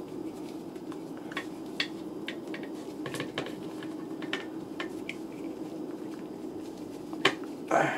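Small clicks and ticks of fingers handling a 1:12-scale action figure and its tiny backpack while fitting the straps over the figure, scattered and irregular over a steady low hum, with one sharper click near the end.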